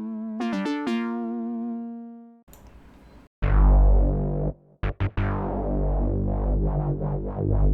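Arturia CS-80 V software synthesizer playing bass presets: a few pitched notes that fade out over about two seconds, then, after a short gap, loud, deep bass notes held and restruck a few times.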